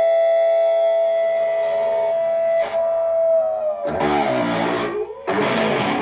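Distorted electric guitar through an Orange Micro Crush amp and an external Mesa/Boogie speaker cabinet, held against the speaker for feedback. A single feedback note sustains for about three and a half seconds, then sags in pitch. Two strummed distorted chords follow, about a second apart, with their notes bending.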